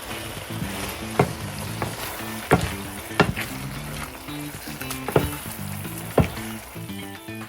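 Prawns frying in olive oil in a hot skillet with a steady sizzle, while a utensil knocks against the pan about five times as they are stirred.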